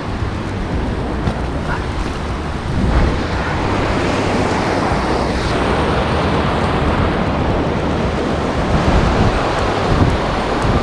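Wind buffeting the microphone: a steady rushing noise with a low, uneven rumble, a little louder from about three seconds in.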